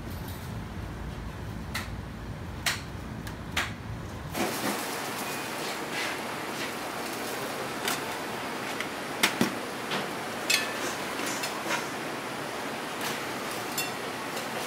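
Scattered light clicks and knocks of steel tongs and a steel tray as raw steaks on paper towels are handled, over steady kitchen noise. About four seconds in, the low rumble drops out and a higher, even hiss continues under the clicks.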